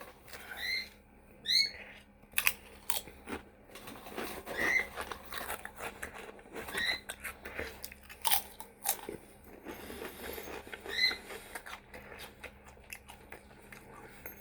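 Crunching and chewing of Flaming Hot Limon Doritos tortilla chips, in uneven bites. A pet bird chirps briefly about five times throughout.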